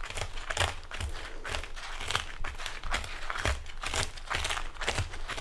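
Rada plunger-style food chopper chopping crisp cooked bacon: repeated short crunching chops, about two a second, each with a dull knock.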